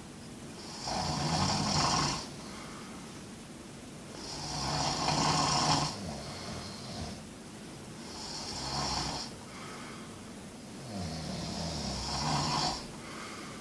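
A sleeping person snoring: four long snores, each lasting a second and a half to two seconds, coming about every four seconds with quieter gaps between.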